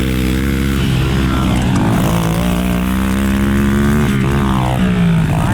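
Pit bike engine running, its pitch holding fairly steady with small rises and falls.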